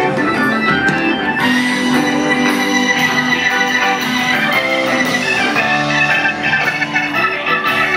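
Live band playing an instrumental passage of a slow rock ballad, with held notes and chords, recorded from within the crowd.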